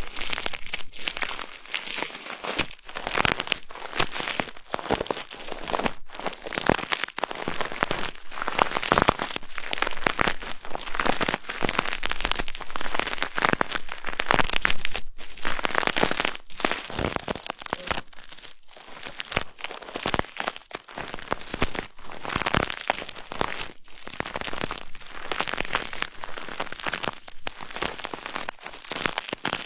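ASMR trigger sounds on a binaural microphone: crinkly, scratchy brushing and rubbing strokes, one after another, easing off briefly a little past halfway.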